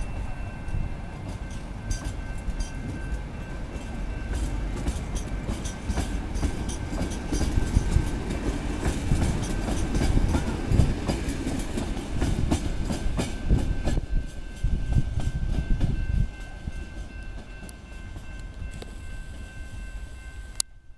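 Passenger coaches of a departing intercity train rolling past, their wheels clicking steadily over the rail joints, with a thin steady high tone over the rumble. About two-thirds of the way in the sound grows quieter as the rear of the train pulls away.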